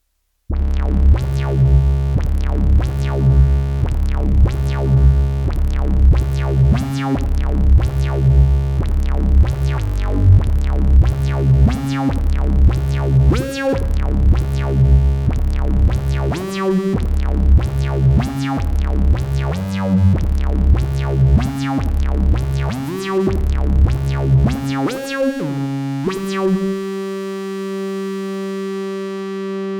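Pittsburgh Modular Taiga Keyboard analog synthesizer playing a repeating bass-heavy phrase, its notes gliding up into pitch. About 26 seconds in the pattern stops and one long note is held.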